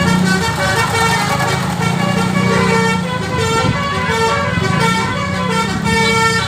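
Tour bus's Basuri V3 telolet musical horn playing a melody, a run of held notes stepping up and down one after another.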